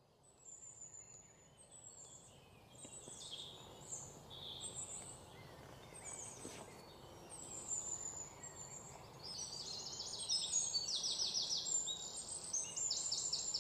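Faint forest ambience of small birds chirping and whistling, with a denser run of rapid repeated chirps from about nine seconds in.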